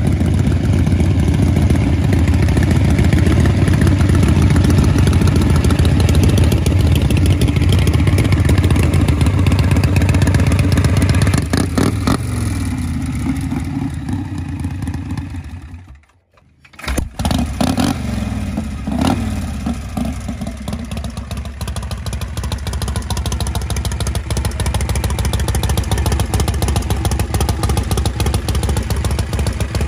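Harley-Davidson Shovelhead V-twin chopper engines running loud through open chrome pipes. A little past halfway the sound falls away in pitch and drops out briefly, then an engine comes back and settles into a steadier, quieter idle.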